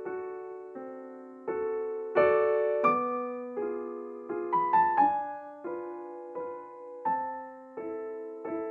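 Background music: slow, gentle solo piano, single notes and chords struck one after another, each ringing out and fading before the next.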